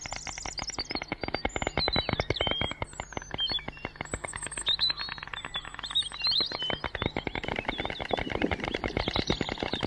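Storks clattering their bills: a fast, continuous rattle of wooden-sounding clicks, with thin high chirps of small birds above it.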